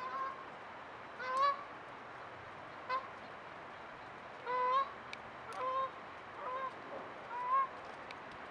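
Goose honking, about seven short calls at irregular intervals, each with a slight upward lilt.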